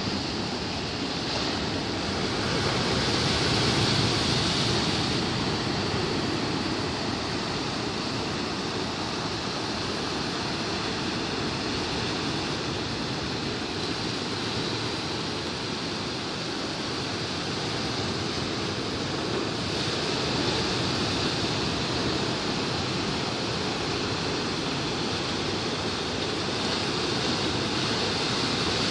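Sea waves breaking onto rocks and a sandy beach: a continuous wash of surf that swells louder a few seconds in, again about two-thirds of the way through, and near the end.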